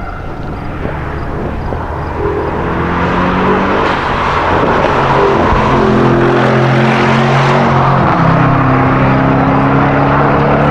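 Sports car engine accelerating hard through the gears, getting louder as it approaches. The revs climb, fall at upshifts about four and eight seconds in, then climb steadily again.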